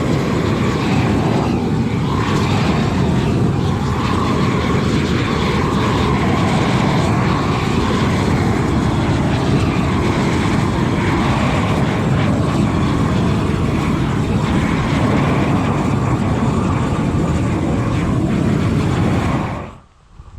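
A torch flame running at full blast with a loud, even rush as it scorches wood boards to burnish them. It cuts off suddenly near the end.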